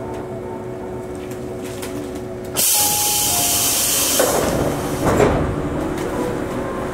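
A stopped electric commuter train's steady electrical hum, broken by a sudden loud hiss of released compressed air lasting about a second and a half. The sliding passenger doors then move, with two louder bumps.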